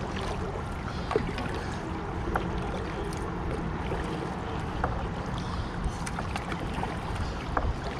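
Kayak paddling on a river: water splashing and dripping from the paddle, with a few short splashes over a steady wash of water and wind on the microphone.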